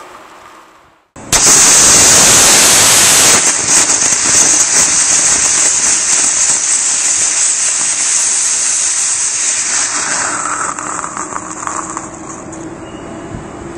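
Hexaphenox core-burning rocket motor with a nozzle igniting about a second in with a sudden loud hiss, then burning steadily with crackling and tailing off in the last few seconds. It burns through without a catastrophic failure (CATO).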